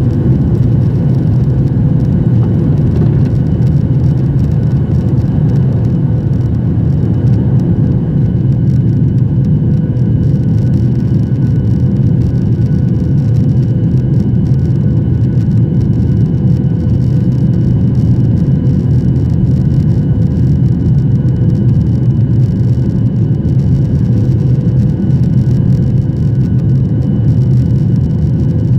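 Boeing 737-800's CFM56-7B turbofan engines at takeoff thrust, heard from inside the cabin: a loud, steady rush with a steady whine over it.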